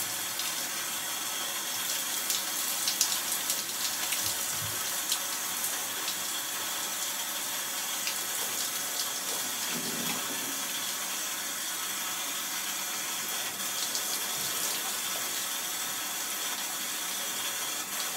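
Handheld shower head spraying steadily onto soaked clothing and a tiled wall: an even rush of running water with scattered sharper splashes.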